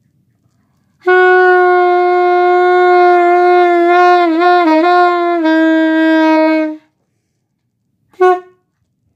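Alto saxophone played by a beginner: one long held note of about six seconds that wavers and dips in pitch a few times near the middle, then a short toot on the same note near the end.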